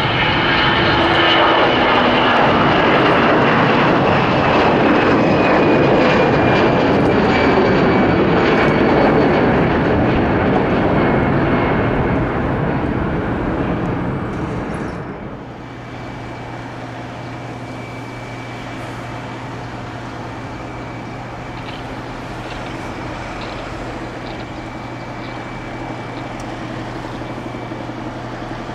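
Airbus A320 jet engines at take-off thrust, a loud rushing roar with a whine that slowly falls in pitch as the jet climbs away. About fifteen seconds in, the sound cuts suddenly to the quieter, steady low drone of an ATR 72 turboprop on approach to land.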